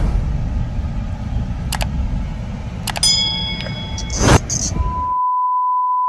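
Car cabin road noise while driving, a steady low rumble with a few sharp knocks. About five seconds in it cuts off abruptly to a steady test-tone beep, the tone that goes with a TV colour-bars screen.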